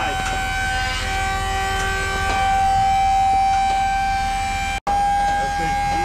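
Steady high-pitched whine of a hydraulic pump working a dump trailer's lift cylinders, over a low engine rumble. The sound breaks off for an instant near the end.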